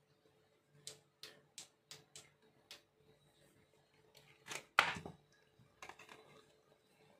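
Hands handling a small item and packaging on a table: a run of light sharp clicks, about six in two seconds, then a louder crackle about five seconds in, followed by a few faint clicks.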